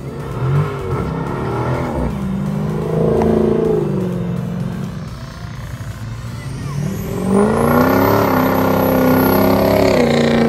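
Vehicle engines revving and accelerating past one after another. A car passes in the first couple of seconds, and a louder pass begins about seven seconds in, when a full-size pickup truck accelerates by close up; this is the loudest part.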